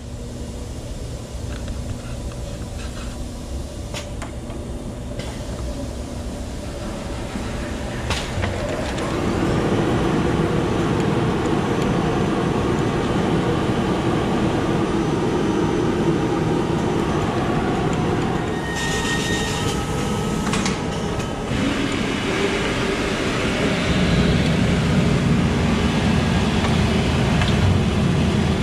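Unipress shirt pressing unit running with steady machine noise that grows louder about nine seconds in and again near the end, with a hiss lasting about three seconds partway through.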